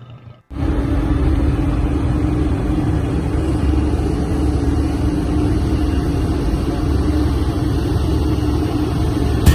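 The ferry's engines running steadily: a loud, even low rumble with a constant hum, starting suddenly about half a second in.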